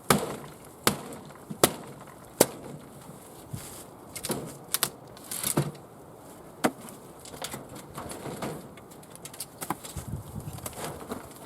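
Hammer blows: three sharp knocks about three-quarters of a second apart, then scattered lighter knocks and taps.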